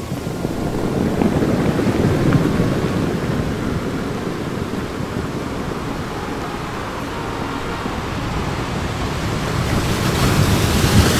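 Sea waves washing onto a sandy beach, with wind rumbling on the microphone.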